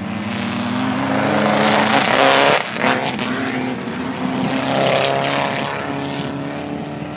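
Engine of a VW Baja Bug off-road race car running hard. It grows louder to a peak about two and a half seconds in, drops briefly, swells again around five seconds and then fades.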